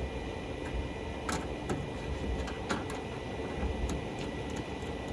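A few light clicks and knocks of parts being handled on a truck door, over a steady low hum.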